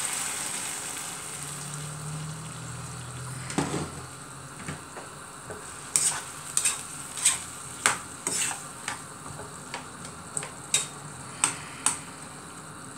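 Cooking pot hissing and sizzling as water goes in, the hiss dying down over the first few seconds. Then a spoon stirs in the pot, knocking sharply against its side a dozen or more times.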